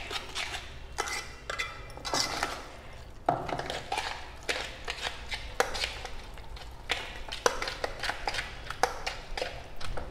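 Metal spoon stirring a thick, wet vada batter in a metal mixing bowl: irregular scrapes and clinks of spoon against bowl, with the wet slap of the mixture.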